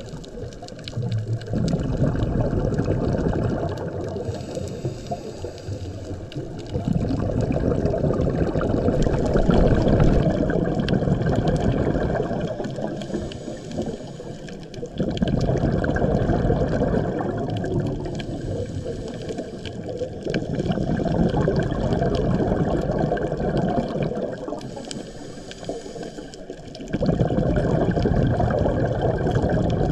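A scuba diver's exhaled bubbles rumbling and gurgling from the regulator, heard underwater. They come in about five long bursts of a few seconds each, with quieter inhale gaps between.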